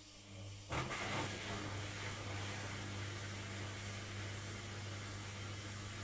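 Logik front-loading washing machine in its load-distributing phase before the spin: the drum motor hums steadily. Just under a second in, the sound jumps louder into a steady rushing whoosh that keeps on.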